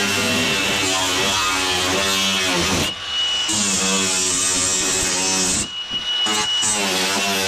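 Small cordless disc cutter slicing through thin aluminium camper siding, its motor whining under load with a steady cutting hiss. The blade lifts free twice, about three seconds in and around six seconds, leaving only the motor's high whine.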